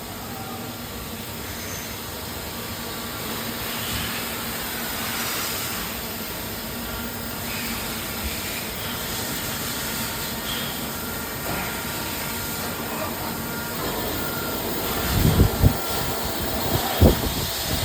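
Steady hiss and hum of running machinery on a CNC machine-shop floor, with a few low thumps near the end.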